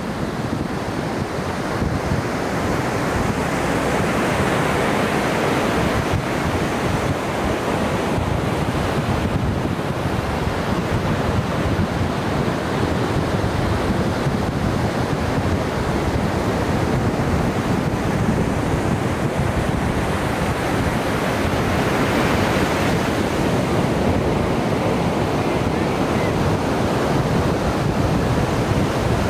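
Ocean surf: waves breaking and washing up the beach in a steady rush, swelling louder about four seconds in and again past twenty seconds, with wind buffeting the microphone.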